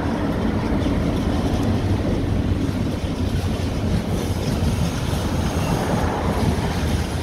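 A freight train of tank wagons rolling past close below, a steady low rumble of wheels on rail, hauled by a DB Cargo Class 60 diesel locomotive that has just gone by.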